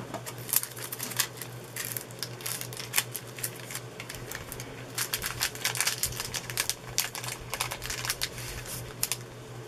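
Irregular light clicks and crackles of thin clear plastic film on a diamond painting canvas being scored with a box cutter along a ruler and handled. The clicks come thicker in the second half.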